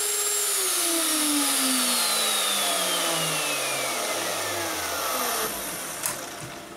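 CNC-mounted Harbor Freight router and its dust-shoe vacuum losing power when a circuit breaker trips mid-cut. The router motor's whine falls steadily in pitch as it spins down over about five seconds. The rush of the vacuum drops away about five and a half seconds in, and a single click follows.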